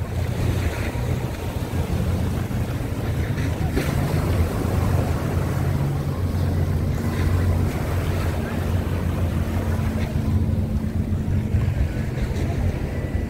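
A ferry's engine running with a steady low hum, with wind buffeting the microphone over it.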